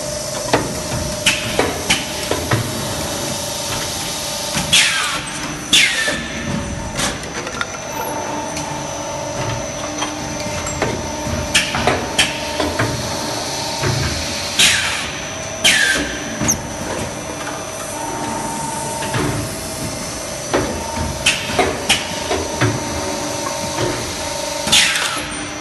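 Multi-cavity HDPE bottle blow moulding machine running through its cycle: a steady hum under repeated metallic clanks and clicks from the mould and blow-pin stations. Short hisses of air come in pairs about a second apart, roughly every ten seconds.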